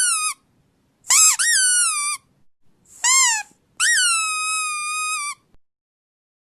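A run of high-pitched squeaks, each rising then quickly falling in pitch. The last is held for about a second and a half before it stops.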